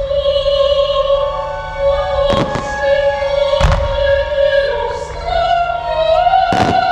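Opera music with a singer holding long notes, and three firework bursts cutting through it: about two and a half seconds in, a second later, and once near the end.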